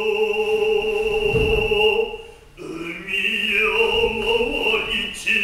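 A man's voice chanting Noh utai in long, held, slightly wavering tones, breaking off briefly about two seconds in before the chant resumes.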